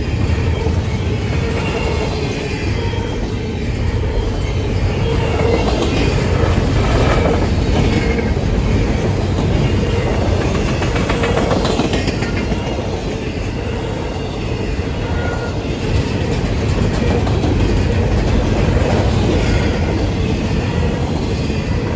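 Double-stack intermodal container train's well cars rolling past close by: a steady rumble of steel wheels on rail, with clacking as wheelsets cross the track.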